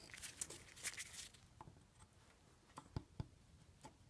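Faint handling of a rusty steel sensor bracket being slipped onto an oxygen sensor's rubber cable grommet, followed by about five light clicks of a screwdriver tip against the bracket's metal tabs in the second half.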